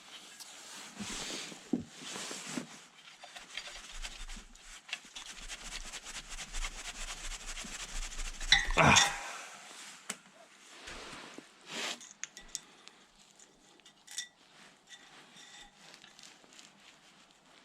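Hands working on a compressor's parts and tools: scattered metallic clinks and rustling, with a louder clatter about nine seconds in.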